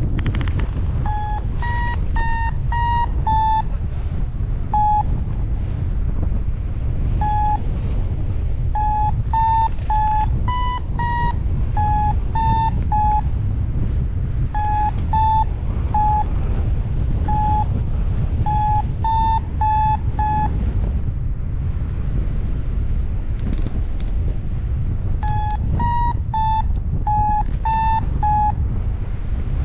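Paragliding variometer sounding its climb beeps, short high beeps in irregular runs whose pitch rises and falls slightly with the strength of the lift. It stops for a few seconds about two-thirds through, then resumes. Steady wind noise on the microphone runs underneath.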